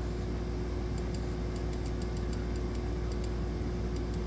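Light, irregular ticking of a computer mouse scroll wheel as a web page scrolls, several ticks a second, over a steady low hum with one faint constant tone.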